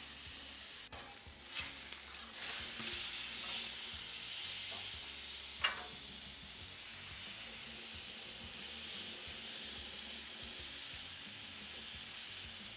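Steak searing on a hot steel flat-top griddle: a steady sizzle, a little louder for a second or so early on, with a few brief crackles and a sharp pop about six seconds in.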